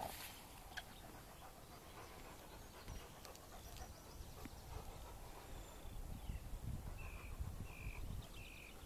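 Outdoor field ambience: a low wind rumble on the microphone, a short rustle of long grass at the start, and a bird giving three short, even notes near the end.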